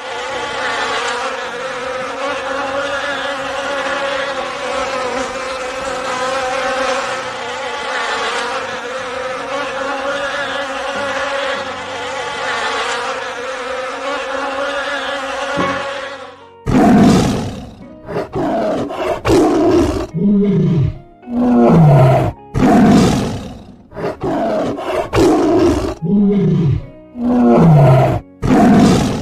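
Insects buzzing steadily, a dense swarm drone. About sixteen seconds in it cuts to a large animal roaring in a series of loud, short calls about a second apart, several sliding downward in pitch.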